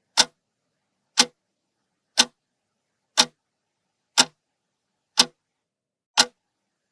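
A clock-tick sound effect: one sharp tick each second, with silence between the ticks, timing the pause for answering the riddle.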